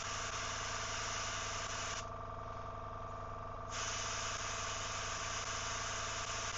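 Airbrush spraying in two long spurts of hiss: the first stops about two seconds in, and the second starts about a second and a half later. Under it, an air compressor runs with a steady hum.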